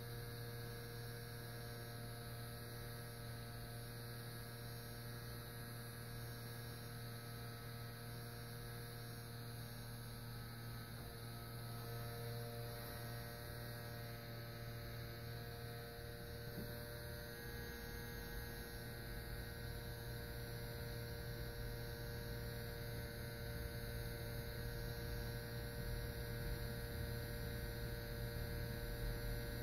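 Steady low electrical hum with a few faint higher tones, unchanging throughout.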